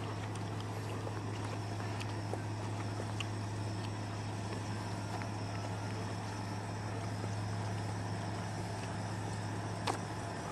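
A steady low machine hum over a faint hiss, with a few small clicks and one sharper click near the end.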